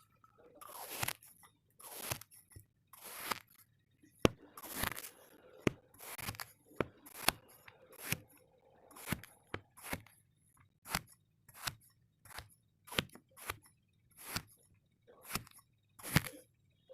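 Kinetic sand being worked in a series of short, separate crunching strokes, about one or two a second, several with a sharp tick.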